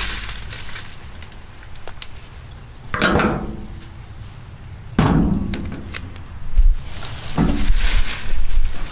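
Heavy-duty 20 mil PVC pipe wrap tape being pulled off its roll, cut and handled. Three short sounds come about two seconds apart, the last the longest.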